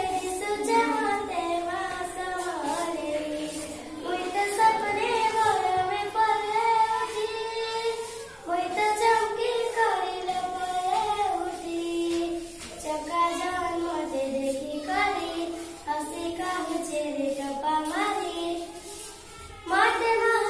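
A young girl singing a song solo and unaccompanied, in melodic phrases with long held notes and brief pauses for breath between them.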